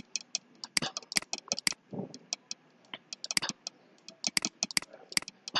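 Irregular light clicks and taps from handwriting input on a computer, several a second in uneven clusters, as an annotation is written on screen.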